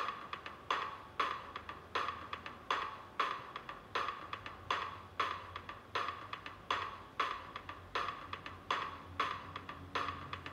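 Outro of a music track, stripped down to a short percussive tick repeating about twice a second over a faint low hum.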